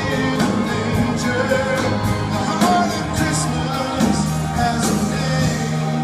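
Pop-rock band music with a steady drum beat: an instrumental passage between sung lines of a Christmas song.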